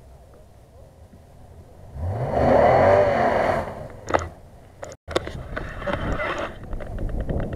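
Toyota Tundra pickup's engine revving hard in mud, rising in pitch and loud for about a second and a half, starting about two seconds in. After a sudden cut the engine keeps running under load with scattered sharp clicks.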